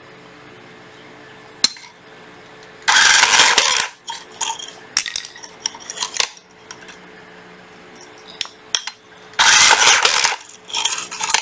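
MAX RB-395 battery rebar tying tool being test-fired twice, each tying cycle a loud burst of motor and metal tie-wire clatter lasting about a second, the first about three seconds in and the second near the end. Light handling clicks come between the two.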